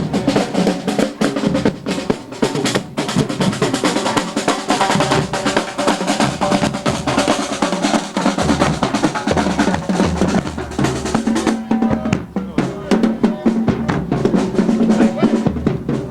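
Marching drumline playing in a parade: rapid snare-drum rolls and strokes over bass-drum beats.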